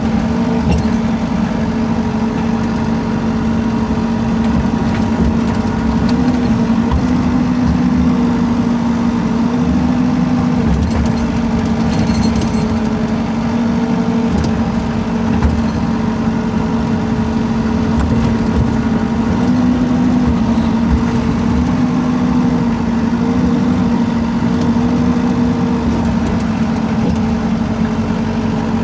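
Rippa R32 mini excavator's diesel engine running steadily, its pitch rising and dipping slightly every few seconds as the machine works.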